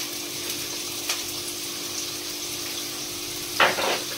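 Peppers and onions sizzling steadily in olive oil in a frying pan, with a brief clatter of kitchen utensils being rummaged near the end.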